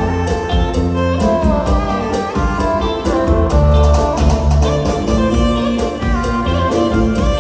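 Live band playing an instrumental passage: drum kit keeping a steady beat under bass guitar, electric guitar and a sustained lead melody, with no vocals.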